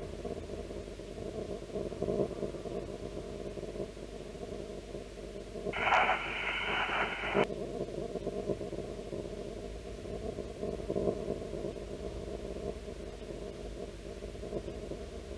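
Steady low hum, with a louder burst of noise about six seconds in that lasts about a second and a half and cuts off suddenly.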